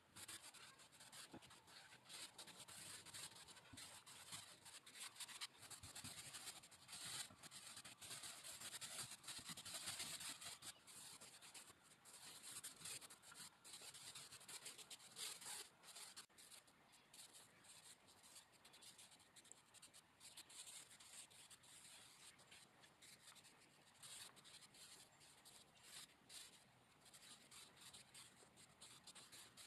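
Faint, repeated rubbing of a mini paint roller rolled back and forth over the cabinet's wood, laying on paint.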